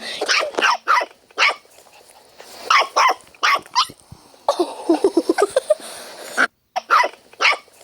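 Dog barking repeatedly, with a stretch of growling in the middle, aimed at a cat.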